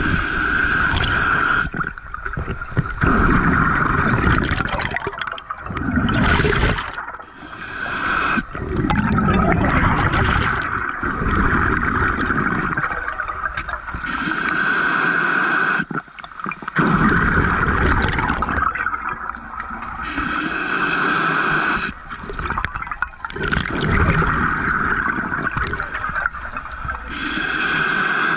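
Scuba breathing heard underwater: exhaled bubbles rushing and gurgling past in surges every few seconds, with regulator hiss between them.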